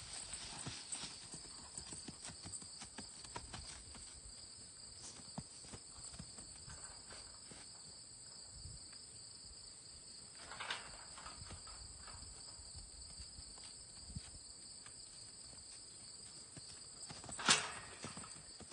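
Hooves of a young palomino overo colt moving over grass and dirt, a scatter of soft, irregular footfalls. One sharp, louder knock comes near the end.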